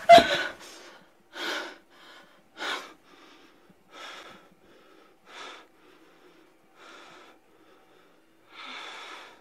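A woman gasps loudly as she starts up from lying down, then breathes heavily, strong and weak breaths alternating about every second and a half.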